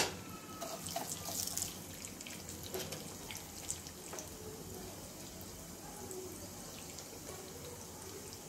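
Mustard and cumin seeds sizzling in hot oil in a frying pan: a faint steady hiss with scattered small crackling pops, busiest in the first couple of seconds and thinning out after. A single sharp click opens it.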